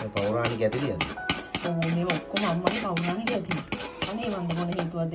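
Metal spoon scraping and tapping against a clay cooking pan, several quick strokes a second, knocking roasted curry powder out onto chicken in a clay pot. A melody of held, sliding notes runs underneath.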